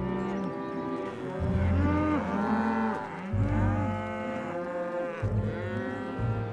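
Cartoon cows mooing several times, long drawn-out moos that rise and fall in pitch, over background music.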